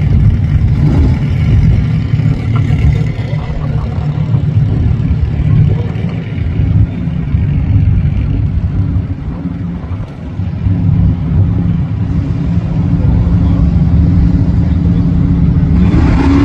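Muscle car engines idling at a drag-strip starting line with a loud, steady rumble that wavers in level. Right at the end the engine pitch starts to rise as an engine revs up.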